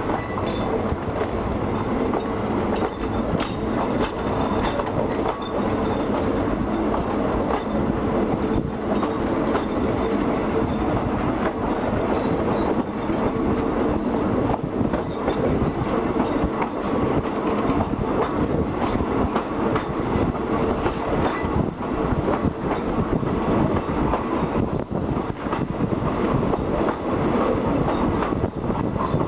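Passenger train coaches running steadily along the track, wheels clacking over rail joints, with constant rumble and rolling noise heard through an open coach window or doorway.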